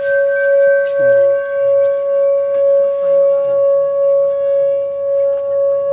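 Metal Tibetan singing bowl sung by rubbing a wooden striker around its rim: one steady ringing tone with a fainter higher overtone, swelling gently in level about every half second. A still higher partial fades out in the first two seconds.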